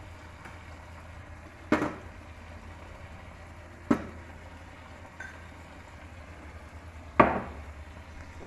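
Metal cooking utensils clanking: a spatula striking a pan or steel plates three times, the last strike the loudest, with a small tap in between, over a steady low hum from the gas stove area.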